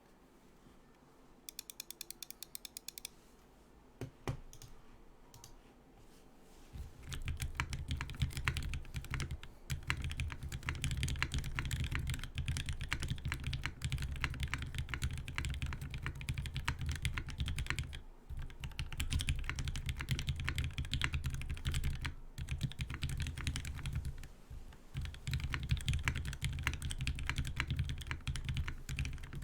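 Typing on an HH60 mechanical keyboard with lubed and filmed Original Aspiration switches, GMK ABS keycaps and no plate or case foam. A few scattered key clicks come first, then steady, fast typing from about seven seconds in, with brief pauses.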